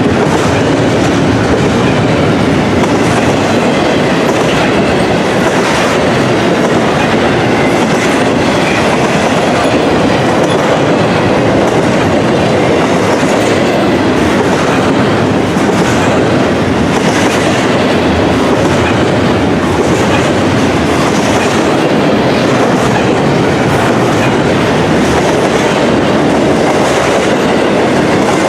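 Intermodal container cars of a freight train rolling past at speed: a loud, steady rumble of steel wheels on rail with regular clacking over the rail joints.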